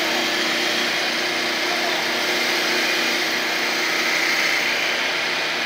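CNC wood lathe turning two wooden spindles at once, its cutters shaving the spinning wood in a steady, even noise with a constant hum underneath.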